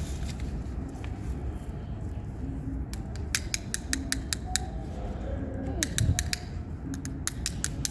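Two runs of rapid, sharp clicks and pops over a steady low rumble, the first about three seconds in and the second near the end.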